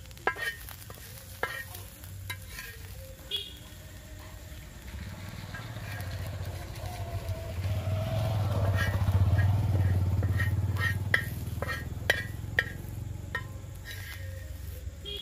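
A steel spoon scrapes and clicks against a black iron tawa as fried onion and green chilli are scraped up, over a light sizzle of frying in ghee. A low rumble swells through the middle and fades again.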